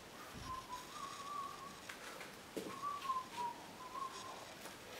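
A person whistling a slow, wavering tune softly in two short phrases. A few faint clicks come between them.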